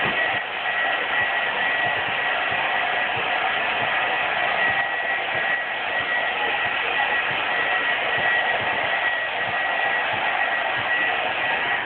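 Handheld hair dryer running steadily, a rush of air with a thin high whine, blowing heat over freshly sprayed taillight tint so that each layer sets before the next. It cuts off suddenly at the end.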